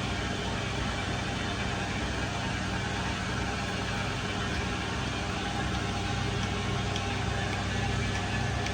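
Brake lathe running steadily with a low hum while skimming a brake disc flat to remove warping.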